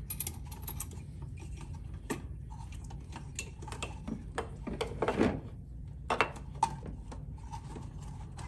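Light clicks and knocks of metal pipe fittings being handled as a flow meter is lifted off a drum's bung fitting, over a low steady hum. The loudest clatter comes about five seconds in, with two sharp knocks a second or so later.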